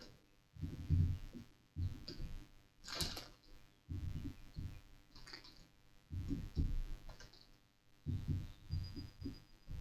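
Plastic cell caps being pried and popped out of the top of a new dry-charge lead-acid battery with a small tool. Scattered clicks and light knocks on the battery case, with one sharper click about three seconds in.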